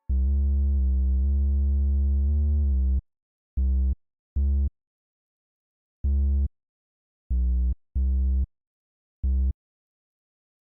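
Synthesizer bass notes with abrupt starts and stops: one note held for about three seconds that steps to a few different pitches, then six short notes at uneven spacing.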